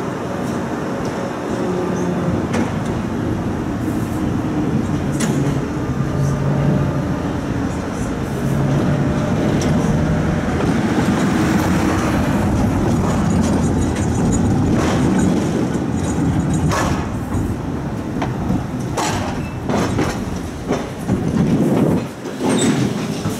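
A tram running on its rails, heard from inside the car: a steady rumble of wheels and running gear with a motor hum that shifts in pitch. Several sharp clicks and knocks come from the wheels on the track, more of them near the end as it crosses points.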